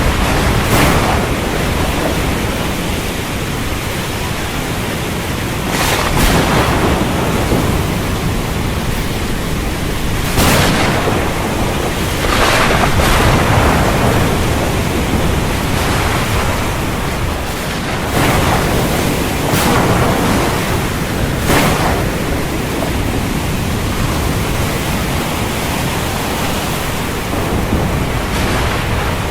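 Storm wind and rough surf: a continuous rushing noise that swells briefly every few seconds.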